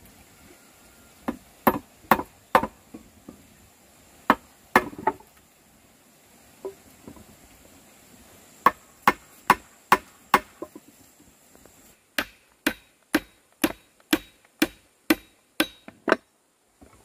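Repeated sharp strikes of a hand tool on wood. They come in scattered groups at first, then in an even run of about two strikes a second near the end.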